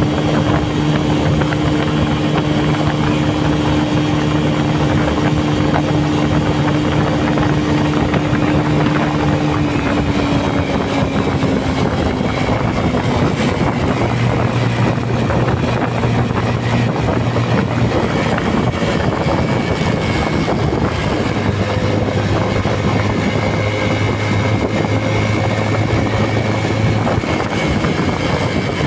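Bajaj Pulsar LS135's single-cylinder four-stroke engine running at highway speed, with steady wind rush over the microphone. About ten seconds in, the engine note falls a little as the bike slows.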